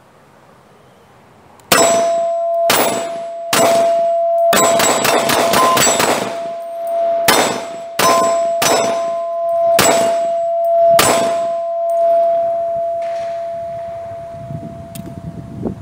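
Taurus TH40C compact pistol firing .40 S&W rounds in a string of about a dozen and a half shots, several in quick succession around the middle. A steel target rings with a steady clang under the shots and slowly dies away after the last one.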